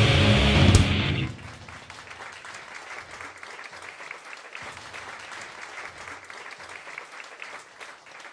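Industrial metal band's final chord on guitars and drums, loud and sustained, cutting off about a second in. It is followed by a small audience clapping, quieter, until it fades out at the end.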